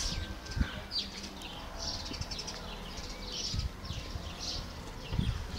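High chirping calls repeating irregularly, about one or two a second, over a faint low rumble and a few soft knocks.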